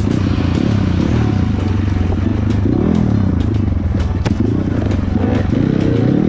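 Dirt bike engine running, its revs rising and falling as it is ridden, with scattered sharp knocks and clatter.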